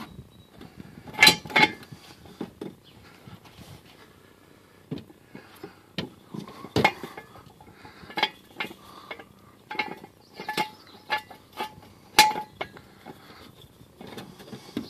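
Irregular metallic clinks and knocks as a jack stand's steel post and saddle are handled and a wooden block is set on it, a few of the strikes ringing briefly. The loudest come about a second in and again near the end.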